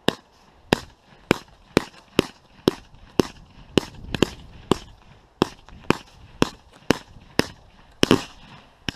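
Fireworks firing a steady series of sharp bangs, about two a second, with a heavier, longer bang about eight seconds in.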